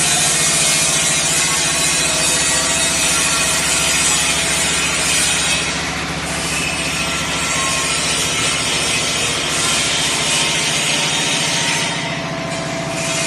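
CNC sink polishing machine's spinning polishing wheel rubbing against the side wall of a stainless steel sink: a steady rasping hiss over a low hum, easing briefly about six seconds in and again near the end.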